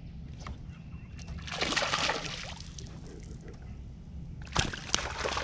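A splash in the pond water about a second and a half in, swelling and fading over about a second. Near the end come two sharp clicks, over a steady low rumble.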